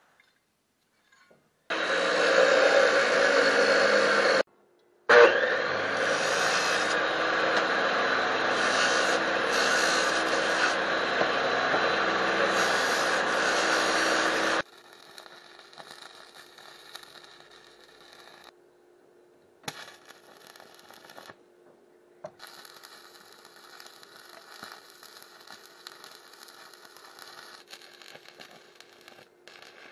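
Abrasive chop saw cutting steel: a short cut about two seconds in, then a longer cut from about five seconds to about fifteen seconds. After that, the much quieter crackle of stick (arc) welding with a steady hum, broken by brief silences.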